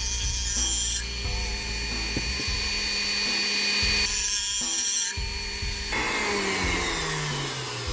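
Small electric grinding tool in a transmission shop, its motor whining, with two bursts of harsh grinding about a second long each, typical of deburring metal parts. Near the end the motor's pitch falls as it spins down.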